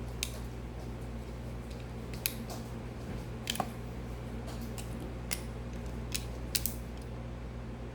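Sharp metallic clicks and snaps of a Leatherman Free P4 multi-tool as its blade and pliers handles are opened and folded. There are about ten clicks, irregularly spaced.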